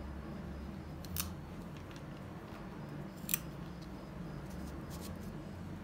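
Kitchen knife snipping through the stems and skins of thin green chilli peppers: a few short, sharp cuts, with a clear one about a second in, the loudest just after three seconds, and fainter ones near the end.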